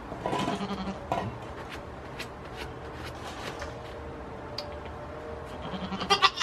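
Small sounds of a goat kid moving about a wooden, straw-bedded shed: faint scattered ticks and rustles, with a quick cluster of sharp clicks near the end.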